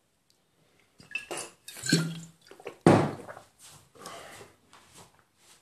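Handling noise from a phone and its earphone microphone being moved and adjusted: a run of irregular rubs, scrapes and clacks, with the sharpest knock about three seconds in.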